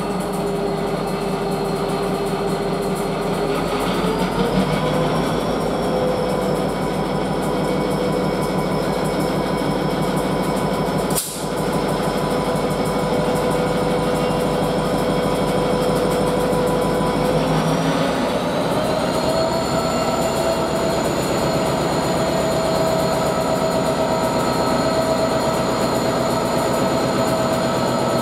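British Rail Class 59 diesel locomotive's two-stroke EMD V16 engine working hard as it pulls away with a heavy loaded stone train. The engine note steps up in pitch twice, about four seconds in and again around eighteen seconds in, as the power is notched up.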